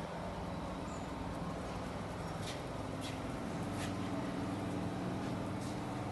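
A steady low mechanical drone, like a running motor, its pitch shifting slightly about halfway through. Over it come about four faint sharp clicks, puppy claws on a tile floor.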